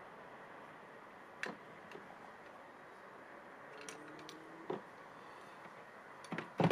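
Scattered light clicks and ticks from handling the anchor line and metal carabiner on the kayak, with a louder knock near the end.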